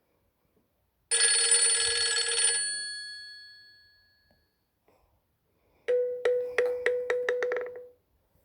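Two short Nokia X3-00 ringtones. The first is a bright chord that starts suddenly about a second in and fades away over about three seconds. After a pause, the second is a quick run of about eight sharp strikes over a steady tone, from about six seconds in, stopping at about eight seconds.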